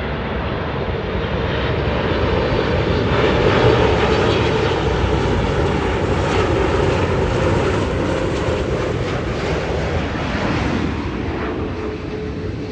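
Boeing 747's four jet engines on landing approach, a steady rumble that swells to its loudest about four seconds in and then slowly fades.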